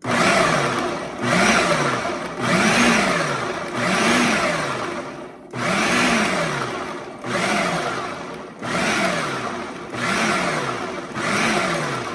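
Food processor with a dough blade pulsed about nine times in a row. Each pulse is a motor whine lasting a little over a second that rises and falls in pitch. It is cutting cold butter pieces into shredded cheddar and flour until the mix looks like small peas.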